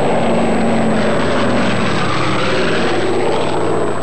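Douglas DC-6 airliner flying past low, its four piston radial engines and propellers droning loudly and steadily.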